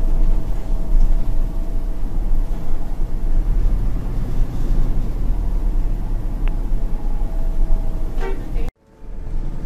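Interior noise of a moving bus: steady low engine rumble and road noise with a thin steady whine over it. The sound cuts off abruptly near the end.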